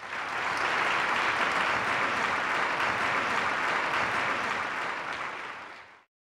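Audience applauding, a dense steady clapping that fades in at the start and fades out about six seconds in.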